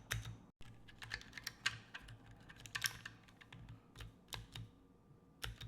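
Mechanical keyboard spacebar pressed over and over, a string of sharp clacks with a pause near the end, after nano tape was added under it to damp its hollow, tingy ring.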